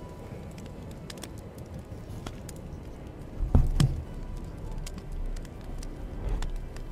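Hand embroidery at close range: a needle and thread being worked through fabric stretched in a hoop, with small ticks and scratches throughout. A couple of dull thumps come a little past halfway.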